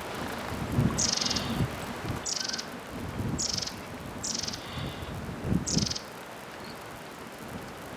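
Shimaenaga (Hokkaido long-tailed tit) giving five short, buzzy trilled calls, each well under half a second, about a second apart.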